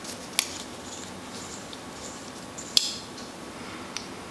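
Small plastic clicks and taps as a tube of hand cream is handled and its cap opened. The sharpest click comes about three seconds in.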